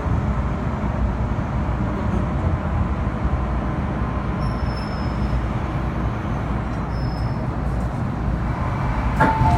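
Interior ride noise of an MTR M-Train subway car running through a tunnel: a steady rumble of wheels on rail, with faint high whines now and then. About nine seconds in, a sharp click, then a two-note electronic chime starts as the train reaches the platform.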